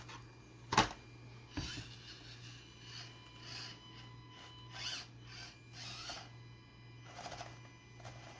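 Axial SCX24 1/24-scale crawler's small electric motor and gearbox whirring in short bursts as it crawls, with a sharp knock about a second in, the loudest sound here.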